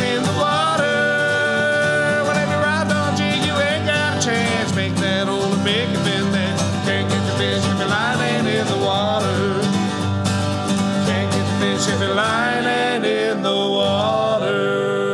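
Acoustic country song: male voices singing together over two strummed acoustic guitars.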